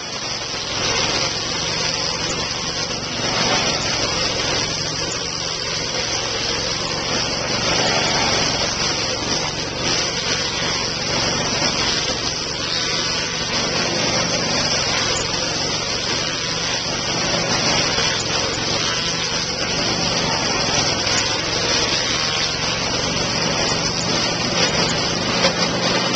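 Petrol stump grinder running steadily under load, its cutting wheel grinding into a tree stump: a constant engine drone under a loud, rough grinding noise.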